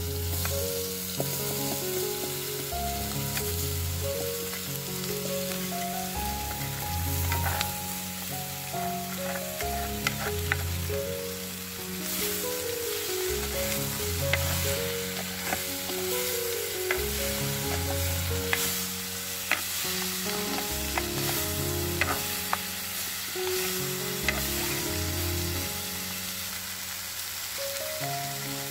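Ambarella pieces sizzling as they fry in hot coconut oil with the tempering, stirred with a spoon that knocks against the pot now and then. Soft background music with a repeating bass line plays underneath.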